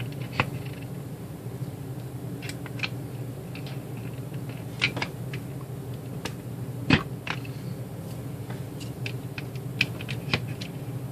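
Plastic pegs of a Loopdeloom weaving loom being pressed into the holes of its plastic base: scattered clicks and knocks, a stiff fit, with the loudest knock about seven seconds in.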